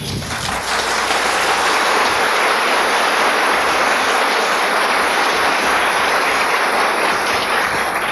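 Audience applause: many hands clapping in a dense, even patter that swells over the first second or two and then holds steady.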